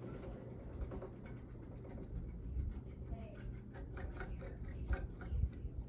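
1981 Casablanca ceiling fan coasting down after being switched off: a low steady hum under faint, irregular ticking and rubbing.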